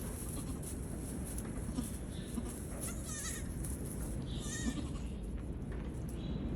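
Nigerian Dwarf goat kids bleating: a few short, high, quavering bleats, the clearest two about three and four and a half seconds in, over steady low background noise.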